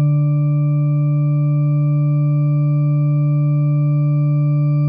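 Yamaha DGX-230 electronic keyboard holding one long, steady note D, played to imitate a modern-day electronic school bell tone.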